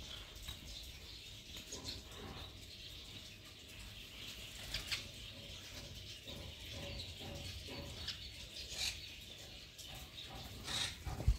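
Faint, scattered bird chirps over a low rumble, with a thump near the end.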